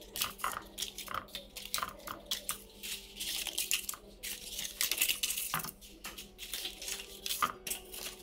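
Paper muffin liners rustling and crinkling as they are peeled from a stack and pressed one by one into the cups of a metal muffin tin, with small taps against the tin. The crackling is busiest around the middle.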